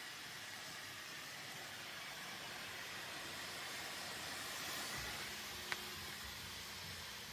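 3D printer running: a steady fan hiss, with faint low motor tones coming in about five seconds in and a single sharp click shortly after.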